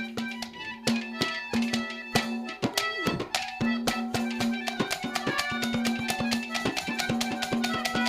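Instrumental music: a long held note over a run of quick drum strokes.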